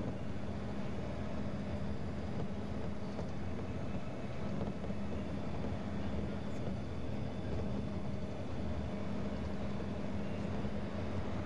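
A vehicle driving at steady speed: an even engine drone with a steady hum and road rumble.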